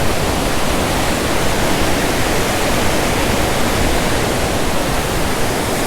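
Large waterfall in full rainy-season flow: a loud, steady rush of falling water.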